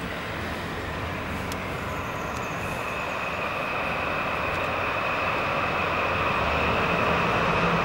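DD51 twin-engine diesel-hydraulic locomotive hauling a container freight train toward the listener. Its engine and running noise grow steadily louder as it approaches, and a steady high whine joins in about two and a half seconds in.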